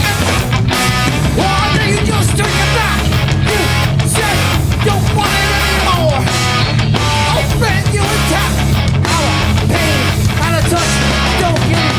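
Hardcore punk band playing live at full volume: distorted electric guitars, bass and drums in a fast, driving song.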